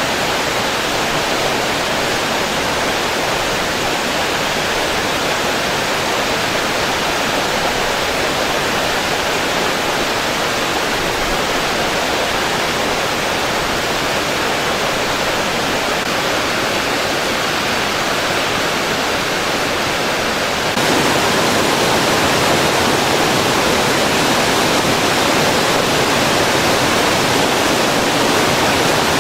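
Waterfall: a steady rush of falling water that jumps suddenly louder about two-thirds of the way through.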